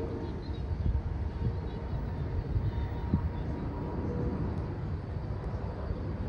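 Distant Boeing 747 jetliner on approach: a low, steady jet rumble.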